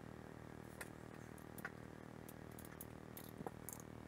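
Scattered light clicks and taps of small metal parts being handled as a stepper motor is fitted to a rotary axis, over a low steady background hum.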